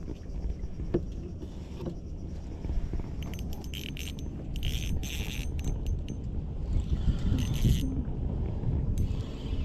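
Spinning fishing reel being cranked in three short bursts of whirring and clicking, over wind rumbling on the microphone.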